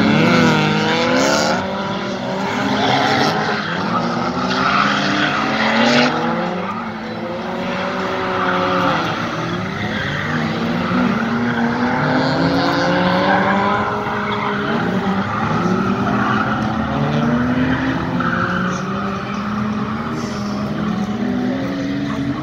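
Cars drifting: their engines revving hard, the pitch climbing and dropping over and over, with tyres squealing at several points.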